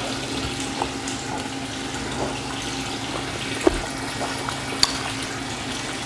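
Steady rushing background noise with a low hum under it, and a few faint clicks of utensils on metal bowls.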